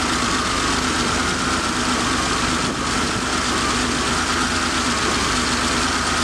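Porsche 911's air-cooled flat-six engine idling steadily after a cold start, with a steady high whine over the idle.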